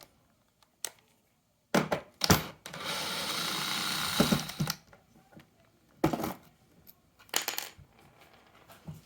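Tools being handled on a workbench: a series of sharp metallic clinks and knocks, with a steady rushing noise lasting about two seconds in the middle.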